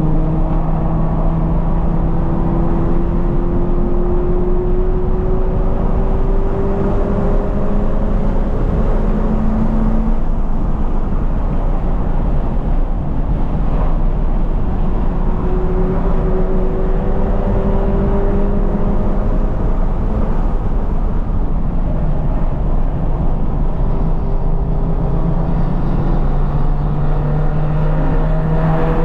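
2020 Toyota 86's 2.0-litre flat-four engine with a Corsa cat-back exhaust, driven hard on track over steady wind and road noise. The engine note climbs in a long pull over the first several seconds, holds and dips through the middle, and climbs again near the end.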